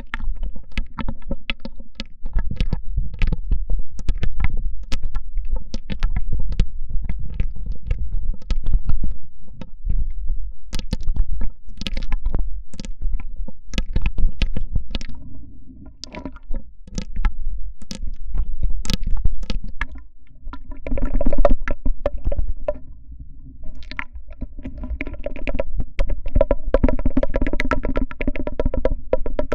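Washing machine drain hose handled as a foley prop: a dense run of sharp clicks and taps over a low rumble, joined about two-thirds of the way through by a steady hum of several held tones.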